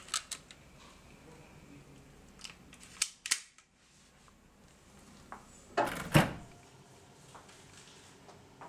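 Handling clicks and knocks from a bedside drawer being rummaged and a handgun being taken out. A few sharp clicks come at the start and two more about three seconds in. A louder clatter ending in a thump comes about six seconds in.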